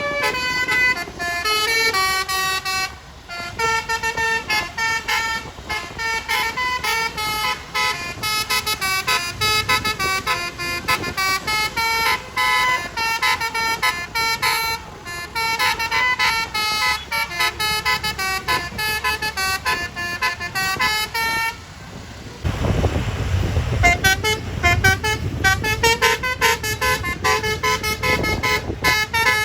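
A bus's Basuri telolet musical air horn playing a quick run of notes that jump up and down in pitch. About three-quarters of the way through, a loud low engine rumble comes in as the bus passes close, and the horn keeps playing over it.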